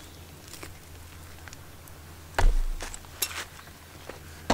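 A slab of raw meat dropped onto a split-log wooden board: one heavy thump about halfway through, then a few light knocks and another thump at the end.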